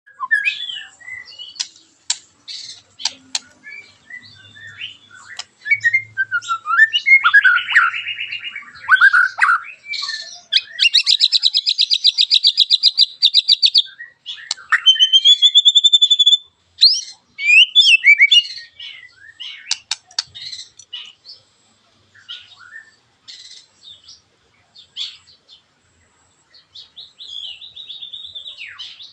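White-rumped shama (murai batu) singing a varied run of sharp chirps, whistles and gliding notes, with a fast, harsh rattle of rapidly repeated notes lasting about three seconds in the middle: the sharp, rough 'tembakan' burst that keepers play to spur other shamas to sing.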